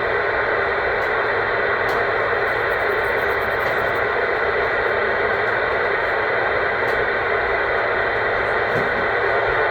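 Steady rushing static from a CB radio speaker, with the channel open and no voice on it.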